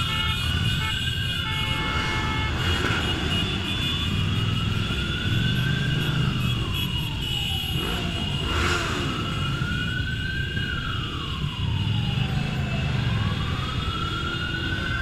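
A siren wailing, rising and falling slowly about every four to five seconds, over the low, steady running of many motorcycle engines.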